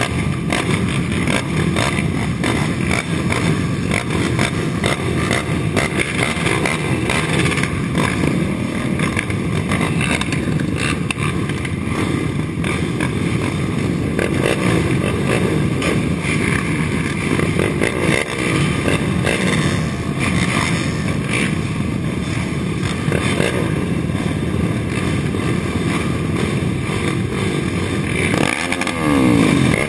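Engines of a pack of race quads idling and blipping together, the nearest being a Suzuki LT-R450's 450cc single-cylinder four-stroke. One engine revs up and back down near the end.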